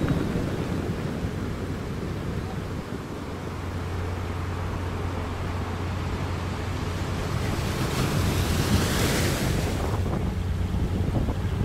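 Fishing boat's engine running with a steady low drone as the boat sets out, under a continuous rush of water and wind on the microphone. A louder hissing rush builds about eight seconds in and fades by ten.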